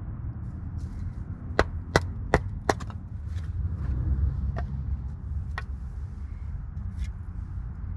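Knife being driven through small-diameter logs to split them into quarters for stove kindling: four quick, sharp knocks about two seconds in, then a few fainter ones, over a steady low rumble.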